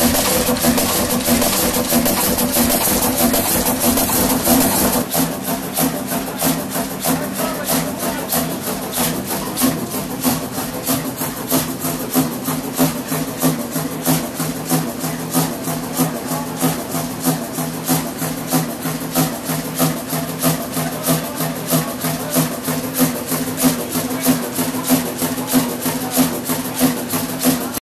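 1947 Fairbanks-Morse diesel generator engine running steadily: a regular beat of strokes over a steady drone. About five seconds in it gets a little quieter and the beats stand out more clearly.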